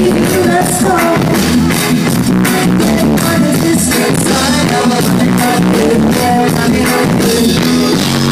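A live reggae band with a woman singing lead into a microphone, over drums and electric guitar. It is loud and steady, recorded from within the audience.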